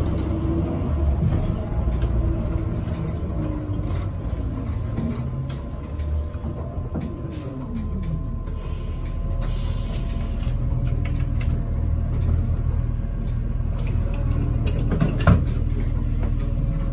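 Interior sound of a NABI Metro 45C CNG transit bus under way: its Cummins Westport L9N engine and Allison B400R transmission running, with the engine pitch falling at the start and shifting again about seven seconds in, and body creaks and rattles. A sharp knock about fifteen seconds in.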